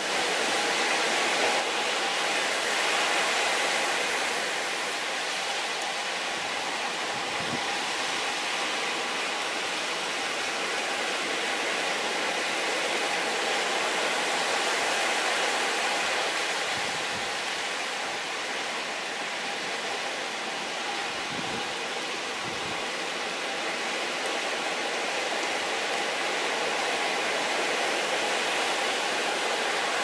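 Heavy storm surf from a typhoon breaking and churning against a rocky shore and sea cliff: a steady rush of water noise that swells and eases slowly.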